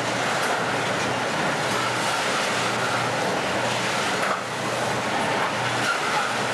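Loaded iron-ore hopper wagons rolling past on the rails in a steady, dense wheel noise, with a low steady drone from the rear helper EMD SD40-2 diesel-electric locomotives coming up behind them.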